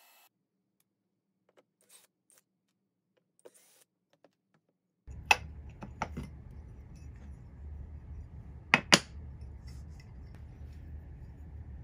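Freshly milled aluminum plate being lifted by hand out of the cut aluminum sheet, clinking against the metal: a few faint taps, then sharp metallic clinks, the loudest a pair about nine seconds in, over a low steady hum.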